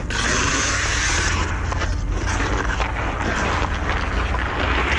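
Hockey skate blades scraping across outdoor ice, loudest in the first second and a half, over a steady low rumble of wind on the microphone.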